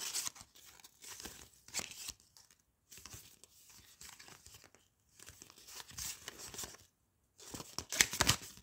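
A sealed trading-card packet being torn open by hand, its wrapper crinkling in irregular bursts, the loudest near the end.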